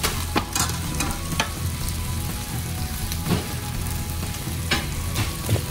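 Sardines frying on aluminium foil in a frying pan: a steady sizzle with a few sharp crackling pops scattered through it.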